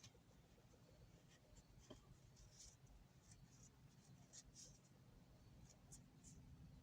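Near silence, with faint, scattered light scratches and small clicks from small ratchet parts being handled on the bench.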